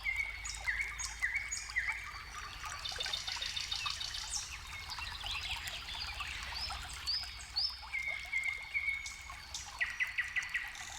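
Several songbirds singing and calling over the steady sound of flowing water. The birds repeat short whistled phrases and quick trills throughout.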